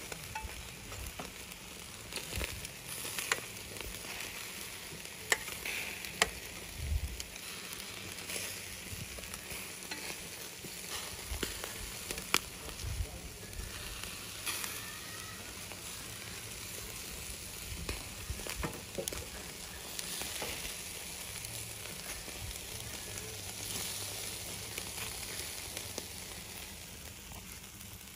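Food sizzling as it fries in hot oil in a pan, a steady hiss with a few sharp clicks scattered through it.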